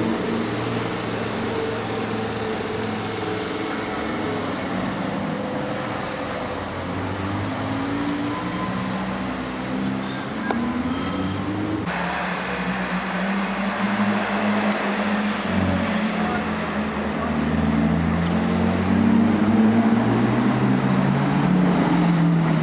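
Car engines and road traffic on a city street, with a bus passing in the first half. After a cut about halfway, engines approach, and near the end the V12 of a Lamborghini Aventador S grows louder as it drives past, its note rising.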